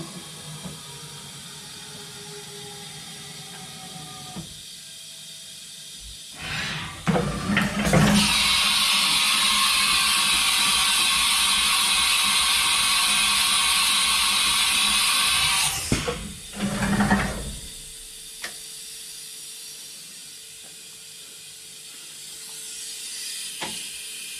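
Compressed air hissing: a loud, steady hiss that builds in a few short bursts about six seconds in, holds for about eight seconds and cuts off sharply, followed by one more short burst. A faint machine hum with falling tones comes before it.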